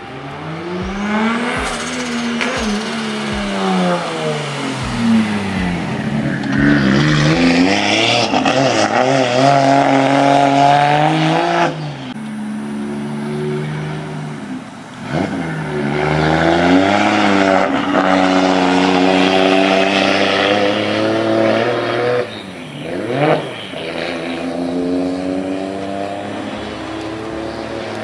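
Nissan Skyline R34's straight-piped RB26 twin-turbo inline-six revving hard, its pitch climbing and falling again and again, with several sharp drops and re-rises as the throttle is lifted and reapplied.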